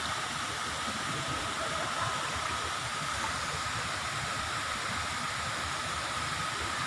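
Steady rushing of flowing water, a stream or cascade running into a rock pool.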